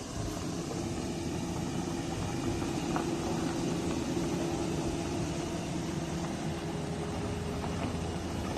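Off-road 4x4's engine running steadily with an even, unchanging pitch as it tries to climb a steep dirt slope.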